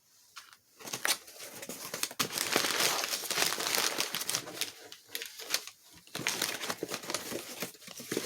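Packing paper crinkling and rustling as a small shipping box is unpacked by hand, starting about a second in, with a few short pauses.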